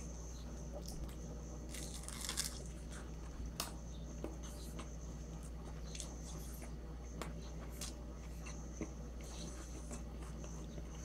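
A person chewing a turkey roll close to the microphone: scattered crunches and wet mouth clicks, the strongest about two and three and a half seconds in, over a steady low hum.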